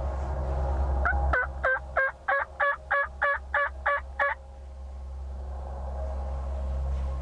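A run of about ten turkey yelps, evenly spaced at roughly three a second, starting about a second in and stopping after about three seconds.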